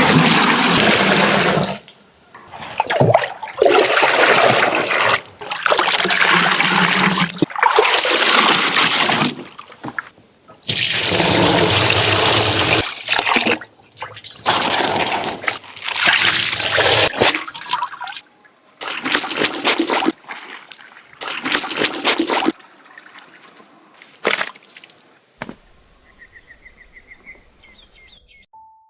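Water pouring and splashing in a run of short bursts, each a second or two long and starting and stopping abruptly, growing faint near the end.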